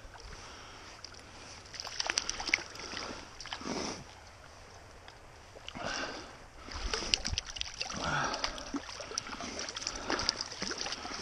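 Water splashing in irregular bursts as a hooked small brown trout thrashes at the surface and is grabbed by hand in a shallow stream, with a quieter spell in the middle.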